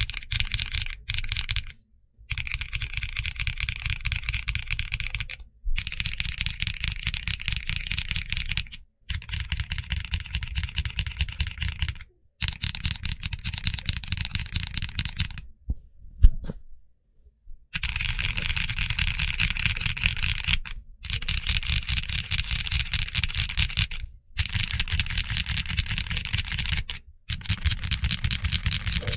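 Fast typing on a mechanical keyboard fitted with Kinetic Labs HMX Butter switches, rapid key clicks in runs of about three seconds separated by brief silences. A single sharp knock sounds during a longer pause about sixteen seconds in.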